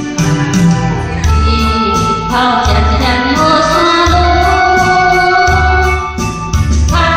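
Singing of a pop ballad over a karaoke-style backing track with an electronic-organ sound and a steady bass beat; the sung melody comes in about a second in.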